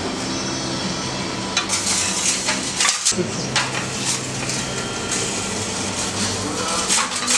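Terracotta baking dishes clinking and scraping on the ledge of a wood-fired oven as they are handled and slid in: sharp clatters between about one and a half and four seconds in and again near the end, over a steady low hum.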